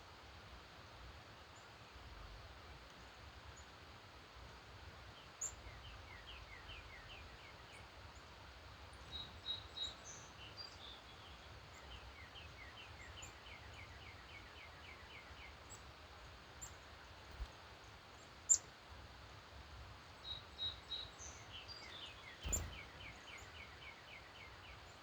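Several wild birds singing and calling at dawn: sharp high chirps scattered throughout, and three times a songbird delivers a fast series of short descending notes. A brief soft knock comes near the end, over a faint steady background hiss.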